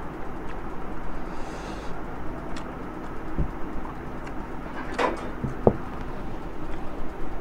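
Table-side eating sounds: curry spooned from a small glass bowl onto a plate of rice, with a few clinks and knocks as the bowl is handled and set down on the table, the loudest about five seconds in. Rice is then mixed by hand, over a steady background hiss.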